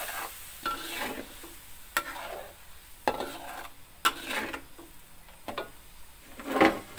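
Metal spatula scraping and stirring a ground chili-turmeric spice paste as it sizzles in oil in a metal wok. The strokes are irregular, roughly one a second, and the loudest comes near the end.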